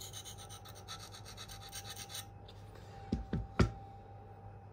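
K390 steel knife edge scraping on a Venev F240 diamond sharpening stone in quick, even strokes, which stop about two seconds in. A little later come three sharp knocks, the last the loudest.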